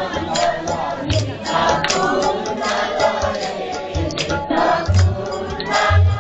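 Group singing with a low drum beat about every second or so and frequent sharp strokes.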